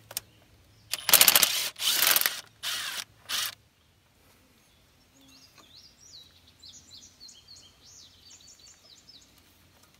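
Hand tool working the timing belt tensioner bolt on a 1.8T engine: four short bursts of rapid clicking in the first few seconds. Faint bird chirps follow.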